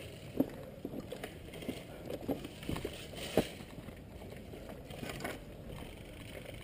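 Footsteps on rough ground with gear rustling: irregular soft crunches about twice a second, with one sharper knock about three and a half seconds in.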